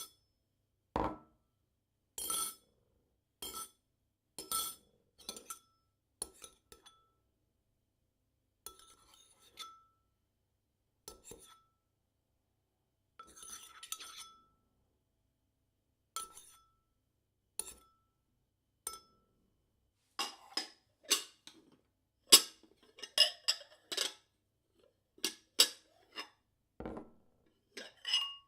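Cereal bowls tapped with a spoon: single clinks about a second apart, each ringing briefly on one clear tone. From about twenty seconds in the strikes come quicker and louder, a run of knocks and clatter as the bowls are knocked together or moved on a wooden table.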